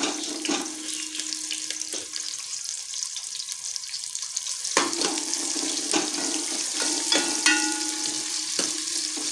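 Sliced onions sizzling steadily in hot ghee in an aluminium pot, with a steel ladle stirring them and knocking against the pot a few times.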